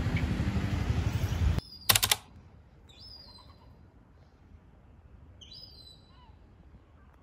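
A bird chirping a few short, separate times over a quiet background. Before it, a loud noisy background with a low hum cuts off abruptly about a second and a half in, followed by a short, loud noise.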